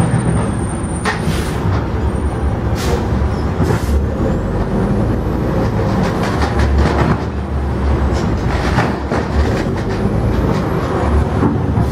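Garbage truck working nearby: a heavy, steady engine rumble with several short, sharp noises in the first few seconds.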